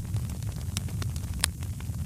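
Fireplace fire crackling: scattered sharp pops, the loudest about a second and a half in, over a steady low rumble.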